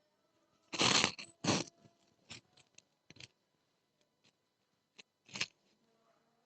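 Rustling handling noise: a series of short crackly rustles, the loudest about a second in, then smaller ones, with another near the end.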